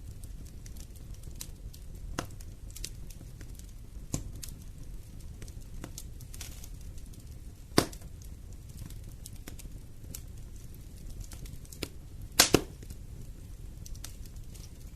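Wood fire burning in a fireplace: a low steady rumble with scattered crackles and sharp pops, the loudest pop about halfway and a quick double pop a few seconds before the end.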